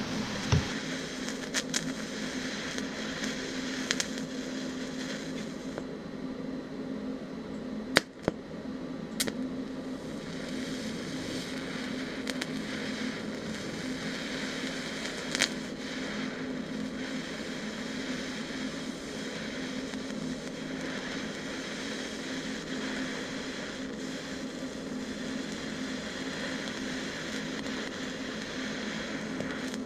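TIG welding arc brazing brass with silicone bronze filler: a steady buzzing hum with crackling and a few sharp pops, about eight seconds in and again near the middle.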